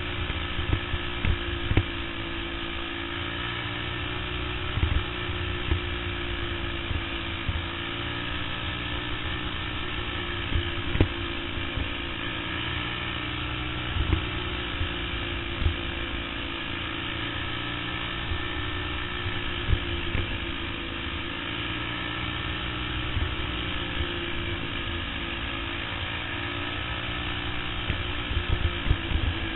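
Caged racing kart's engine running hard under racing load, heard from a camera mounted on the kart itself; steady, with its pitch drifting slightly up and down through the turns. Scattered sharp thumps throughout.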